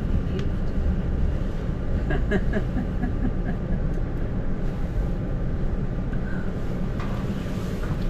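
Electric passenger train running, heard from inside the carriage as it slows into a station: a steady low rumble with a few faint squeaks about two to three seconds in.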